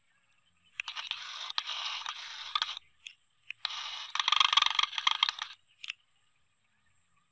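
Two bursts of crackling, scraping noise, each about two seconds long, with a short crackle just after.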